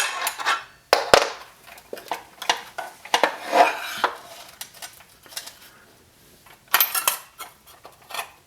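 Irregular metal clicks, clinks and short scraping rattles from working the Allen key and taking the arbor bolt and blade off a DeWalt DC390 cordless circular saw.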